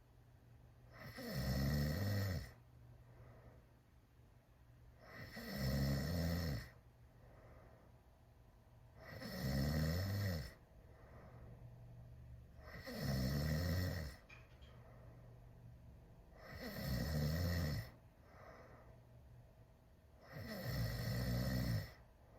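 A teenager snoring loudly through a wide-open mouth. Six snores come one every three and a half to four seconds, each lasting about a second, with fainter breath sounds between them.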